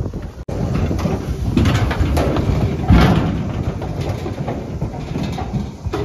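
Cattle crowding through a steel livestock alley, with the pipe gates and panels clanging and rattling and a louder bang about three seconds in.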